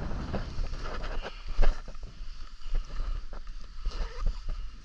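Wind buffeting the microphone, a steady low rumble, with rustling and short handling knocks as things are set down on the grass; the loudest knock comes about a second and a half in.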